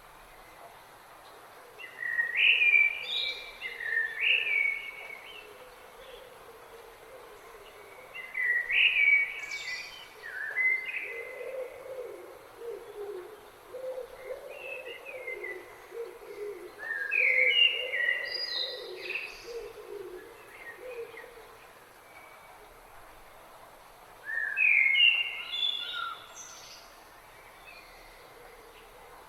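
Songbirds singing: four clear song phrases, each a couple of seconds long and coming about every seven or eight seconds, stepping down in pitch and ending in a high twitter. A lower-pitched bird calls over and over through the middle, above a faint steady hiss of flowing river water.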